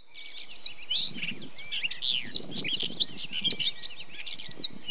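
Many small songbirds chirping and twittering at once, a dense chorus of short, quick rising and falling notes.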